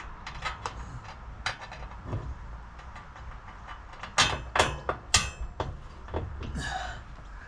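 Scattered clicks and knocks from a parcel shelf and its fittings being handled and set into place in the back of a car, with three loud knocks about four to five seconds in, the last one ringing briefly.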